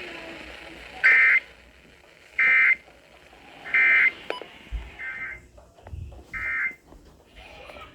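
EAS/SAME end-of-message data bursts: five short, buzzy digital bursts about a second and a quarter apart, the fourth fainter, marking the end of the broadcast alert.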